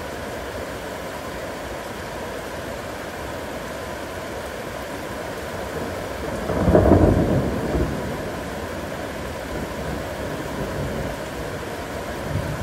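Steady heavy rain with a single roll of thunder that swells about six seconds in and fades over about two seconds, the loudest moment.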